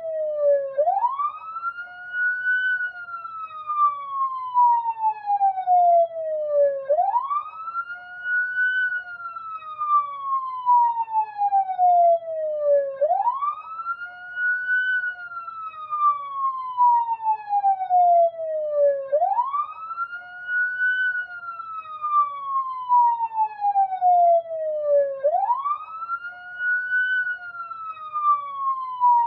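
Police siren wailing. Each cycle rises quickly in pitch, then falls slowly back down, repeating about every six seconds.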